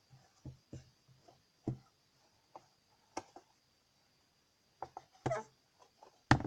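Scattered light knocks and rustles of objects being handled close to the microphone, coming irregularly, with a sharper knock near the end.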